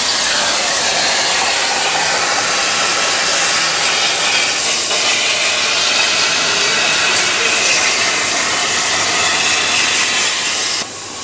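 CNC plasma cutting torch running through a cut: a loud, steady hiss of the plasma arc and air jet that cuts off abruptly near the end.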